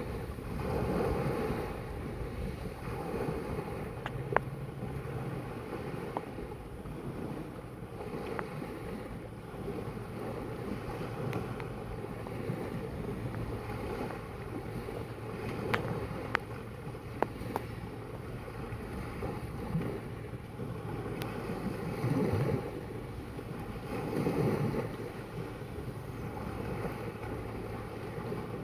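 Sea water washing and surging, swelling every few seconds, with wind buffeting the microphone and a few sharp clicks.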